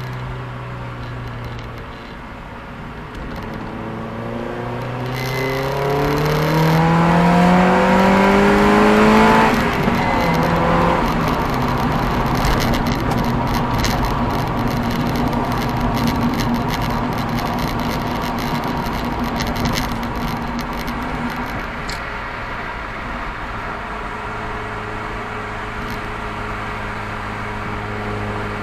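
Mazda MX-5 NB's four-cylinder engine through a full 2.5-inch stainless exhaust with a straight-through muffler: the revs climb smoothly for several seconds to a loud peak, drop sharply about ten seconds in, then hold steady at higher revs before settling back to a low steady note near the end.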